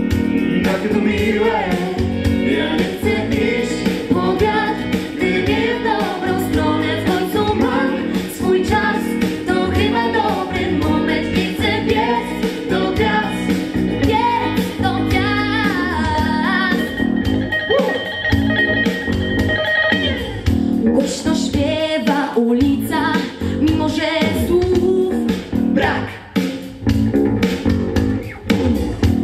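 A small group of young singers performing a song into microphones over an instrumental accompaniment.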